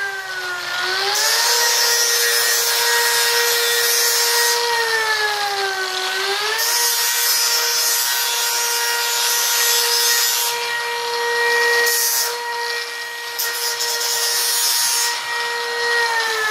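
Angle grinder grinding the burrs off the cut ends of quarter-inch steel plate. A steady motor whine sags in pitch twice as the disc is pressed into the steel, with passes of grinding hiss lasting several seconds each.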